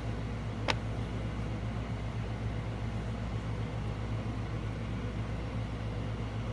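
Air conditioner running with a steady low hum, and a single short click a little under a second in.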